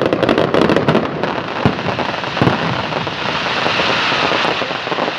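Fireworks display: rapid crackling through the first second, two separate bangs a little under a second apart, then a dense continuous crackle.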